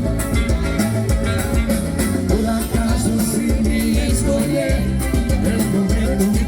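Latin-style dance music with a steady beat, played loud and without a break.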